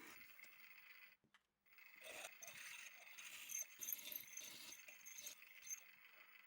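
Faint rattling and scraping of small hard objects, with a short gap about a second in; it cuts off suddenly near the end.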